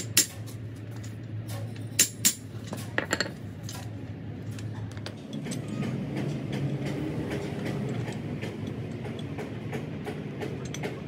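Metal parts and tools clinking, several sharp strikes in the first three seconds, over a steady low hum that turns into a rougher rumble about halfway through.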